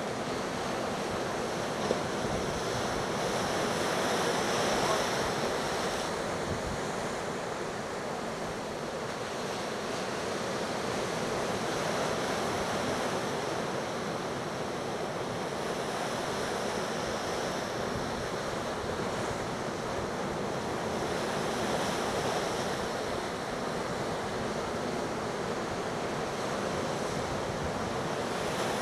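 Surf from a building hurricane swell breaking on a beach: a continuous wash of waves that swells and eases every several seconds, with wind buffeting the microphone.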